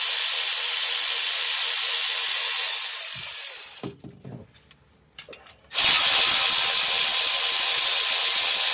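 Power ratchet spinning out the long oil pump mounting bolts: a steady, loud whirring run that stops about four seconds in, a few light clicks while the tool moves to the next bolt, then a second run from about six seconds in.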